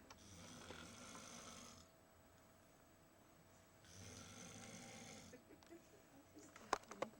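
Snoring: two long snoring breaths about four seconds apart, with a quiet pause between. Near the end come two sharp clicks, which are the loudest sounds.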